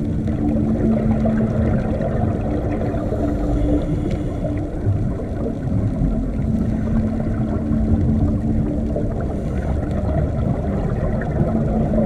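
Underwater ambience: a steady low rumble of moving water, with a low two-note hum that fades in and out several times and a faint crackle above it.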